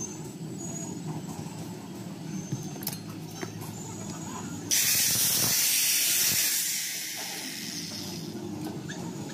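Light handling clicks over a low workshop background, then about five seconds in a sudden loud hiss that lasts about two seconds and fades away.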